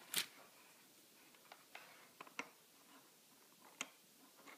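Sparse light clicks and taps from small tools being handled at a soldering bench, the loudest about a quarter second in and the rest scattered singly and in pairs.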